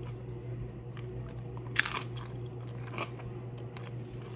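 Close-miked chewing of crisp tortilla chips loaded with nacho toppings: one loud, sharp crunch a little under two seconds in, then smaller crunches as he chews, over a steady low hum.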